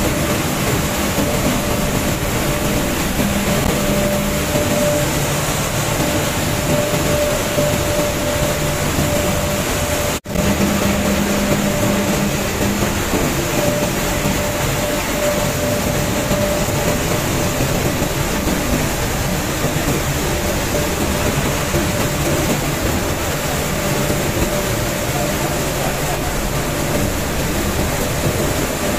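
Wheat flour mill machinery running: a loud, steady mechanical din with a steady hum and a high whine, from the pneumatic conveying system with its rows of rotary airlock valves under cyclones. The sound cuts out for an instant about ten seconds in.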